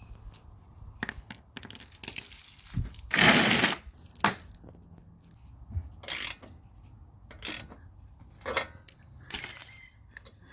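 Small metal tools and parts clinking and knocking as they are handled, a string of separate clinks with a longer, louder rattling scrape about three seconds in.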